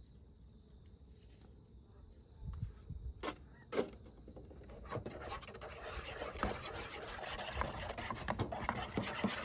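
Two sharp clicks as plastic party cups are set down and stacked, then a fork whisking beer batter in a bowl, a fast scratchy clatter building from about five seconds in.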